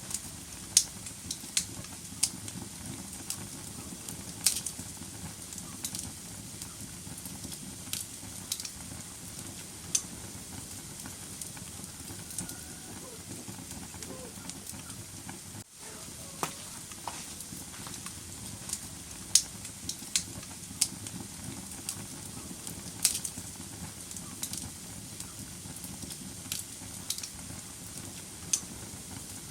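Wood fire burning in a fireplace: a steady low rush of flame with irregular sharp crackles and pops from the burning logs, and a momentary gap about halfway through.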